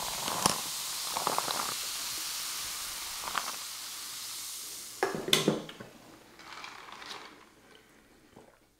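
A fizzy drink over ice foaming in a tumbler held close to the microphone: a steady crackling fizz with a few small ice clicks. It cuts off abruptly about five seconds in with a knock and clink, and then softer handling sounds follow.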